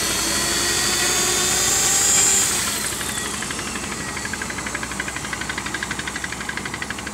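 Electric motors and spinning propellers of the T380 RC multirotor hovering, a whining buzz. It is louder and hissier for the first two and a half seconds, then drops to a softer buzz that pulses about five times a second.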